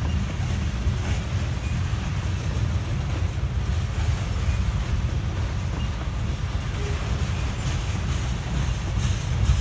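Loaded oil tank cars of a heavy freight train rolling slowly past, a steady low rumble of steel wheels on the rails.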